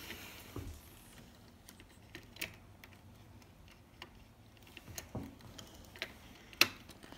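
Light plastic clicks and knocks of LEGO pieces as a hand works a piece into place in a LEGO City police station model. A handful of separate clicks with quiet between them, the sharpest about six and a half seconds in.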